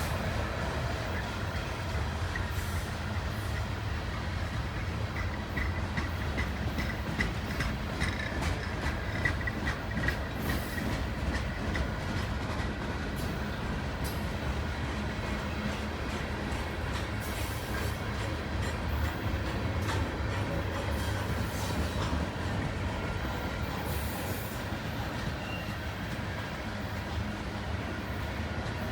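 Freight train cars rolling past: a steady rumble with clatter of wheels over the rails, and a faint high wheel squeal in the first half.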